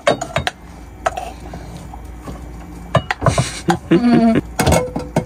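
A spoon scraping and knocking against cooking pots as cooked rice is scooped from one pot into another, in a series of separate clinks and knocks.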